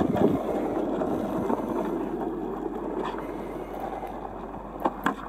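Skateboard wheels rolling on asphalt, a steady rumbling that slowly fades, with a few sharp clicks near the end.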